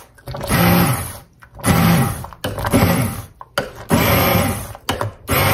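Hand-held immersion blender pureeing soft slow-cooked apples, run in repeated bursts of about a second each with short pauses between.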